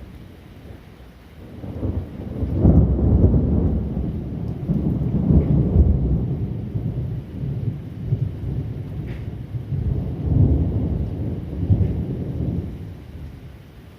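Thunder from a lightning strike: a long, low rolling rumble that builds about a second and a half in, swells and eases in several waves for about ten seconds, then dies away near the end.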